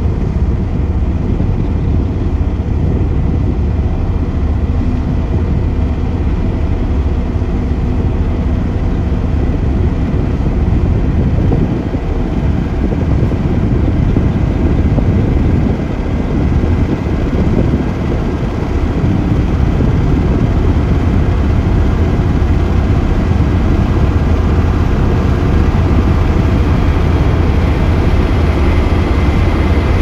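Several Liugong single-drum road rollers running together as they drive in a column, their diesel engines making a steady, loud, low rumble.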